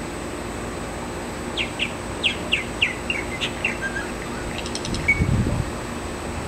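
Male purple martin singing: a quick run of about eight short, downward-sweeping chirps starting about a second and a half in, then a few scattered lower notes and a brief ticking rattle. A low rumble comes in near the end.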